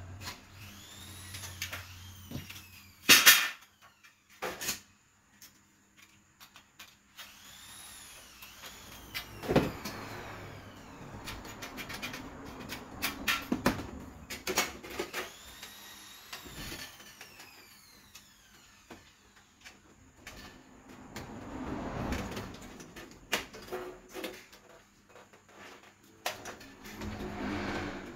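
Aluminium cabinet frame and floor panel being handled and fitted by hand: irregular knocks and clanks of aluminium against aluminium with sliding and scraping in between, the sharpest knock about three seconds in.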